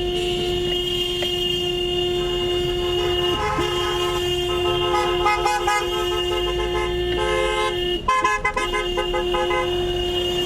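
Vehicle horns honking: one steady horn tone is held nearly throughout and breaks off briefly twice. Other horns sound over it in short repeated toots through the middle.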